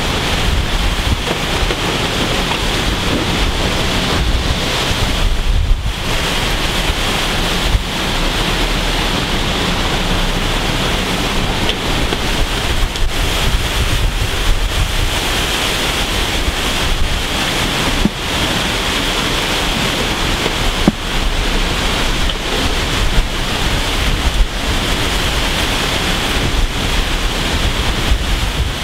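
Strong, gusty hurricane wind blasting across the microphone: a loud, unbroken rushing noise that eases briefly about six seconds in.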